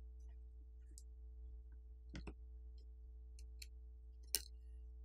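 Faint light clicks of a plastic pry pick working under a smartphone's main board, a quick pair a little after two seconds in and a sharper click near the end, over a low steady hum.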